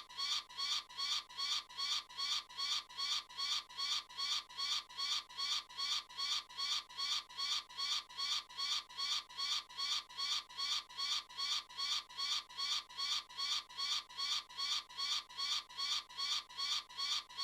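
An eagle's high-pitched call repeated rapidly and evenly, about two to three calls a second, cutting off abruptly at the end.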